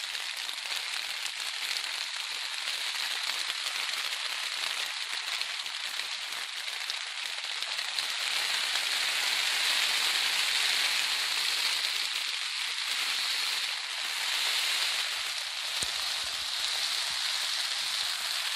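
Heavy rain falling steadily on the outer rainfly of a Marmot Vapor 2P tent, heard from inside the tent, growing a little louder about eight seconds in.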